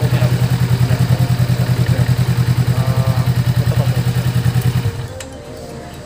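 Honda Rebel 500's 471cc liquid-cooled parallel-twin engine idling with a steady, rapid pulse, then switched off about five seconds in, the engine sound stopping abruptly.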